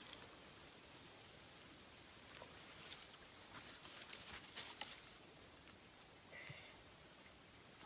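Faint outdoor ambience: a steady high-pitched insect drone, with scattered soft clicks and rustles in the middle.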